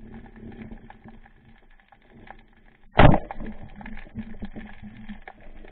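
A speargun firing underwater about three seconds in: one sharp, loud crack, followed by a couple of seconds of irregular rattling and knocking. A faint clicking crackle of the water runs under it throughout.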